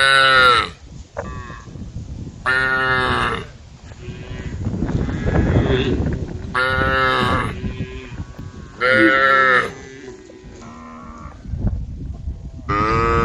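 Cattle mooing: several long, loud calls come about every three seconds, some overlapping. A rough, noisy stretch fills the gap between two of the calls.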